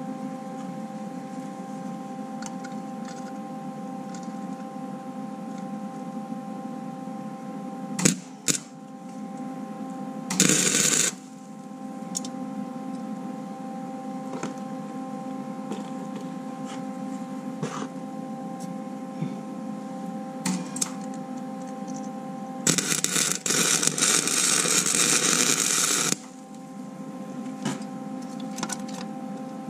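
Stick welder humming steadily, with the arc crackling in short bursts about a third of the way in and in a longer weld run of about three and a half seconds about three-quarters of the way through.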